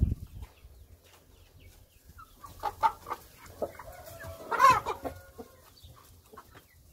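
A flock of young Brahma chickens clucking, with scattered short calls and one louder call about four and a half seconds in.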